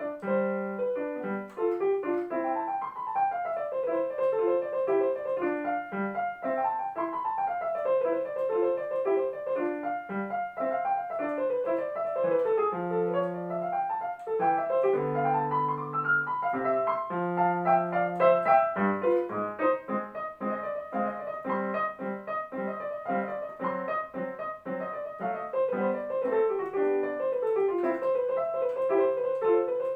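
Digital piano played solo: a fast classical keyboard piece of quick running scales that rise and fall over a repeated note, with held low notes in the left hand partway through.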